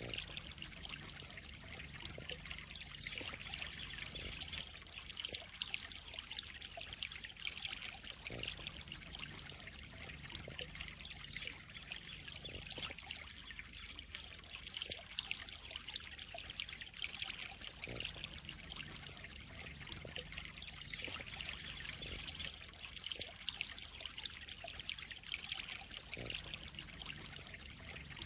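Water trickling and splashing steadily into a koi pond, a continuous bright patter with a few brief louder splashes.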